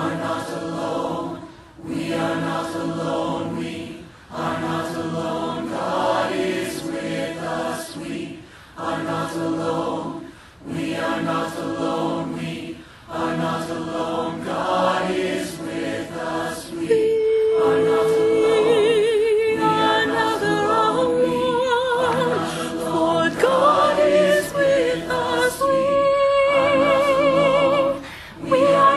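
Virtual choir singing in short chordal phrases with brief breaths between them. A little over halfway through, a solo female voice with a strong vibrato rises above the sustained choir.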